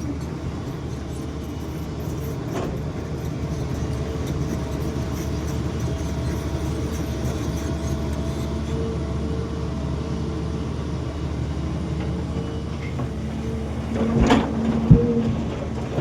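Excavator's diesel engine running steadily while loading soil, with a thin whine coming and going. A short burst of knocks and clatter near the end.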